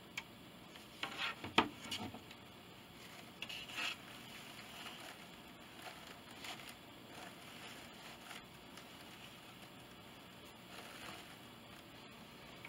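Faint handling sounds as artificial flowers are pressed and adjusted on a crocheted wreath: a few small clicks and taps between about one and two seconds in, a soft scrape near four seconds, then light rustling.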